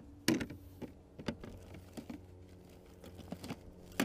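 Handling noise: a louder knock about a third of a second in, then scattered light clicks and taps as gear and the camera are moved about in the boat.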